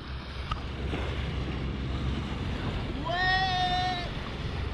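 A person's single scream, one high held note lasting about a second, about three seconds in, over steady wind and water noise.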